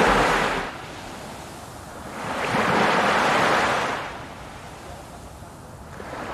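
Sea surf, waves washing in and drawing back in slow swells, one every three to four seconds.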